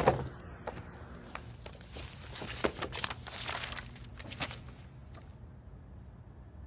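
Papers being handled on a desk: soft rustling with scattered light taps and knocks, fading out after about five seconds.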